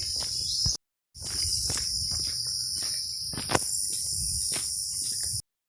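Steady, dense, high-pitched chorus of insects in rural vegetation, with a scatter of short soft knocks. The sound drops out completely twice, briefly, just under a second in and near the end.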